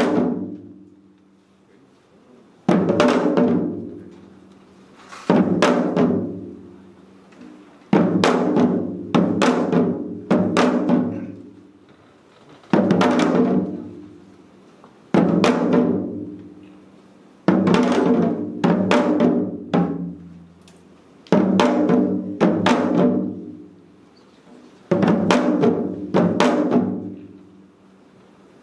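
Four janggu, Korean hourglass drums, played together in a slow, sparse passage of seoljanggu. Sharp strokes or short clusters of strokes come every two to three seconds, each ringing and fading away before the next.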